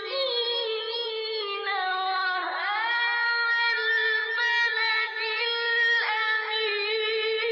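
Intro music of a wordless-looking title sequence: a high, melodic sung or chanted vocal line over a steady held tone, with one swooping glide down and back up a little over two seconds in.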